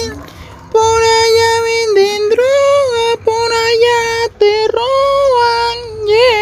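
A high-pitched voice singing long held notes, separated by short breaks, with a wavering note near the end.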